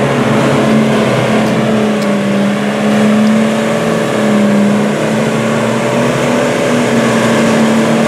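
Engines of off-road 4x4 vehicles running under load as they wade through a muddy pond: a steady engine drone whose pitch rises and falls slightly.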